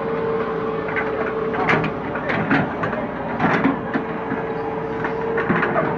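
Sumitomo SH130 hydraulic excavator running, with a steady whine under irregular sharp knocks and clanks of metal and wood.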